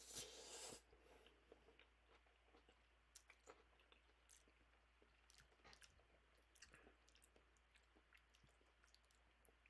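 Instant noodles being slurped loudly for most of the first second, then quiet chewing with scattered light clicks.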